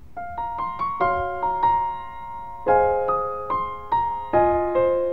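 Soft piano background music begins: a few single notes picked out one after another, then fuller chords from about halfway in, each note ringing and fading.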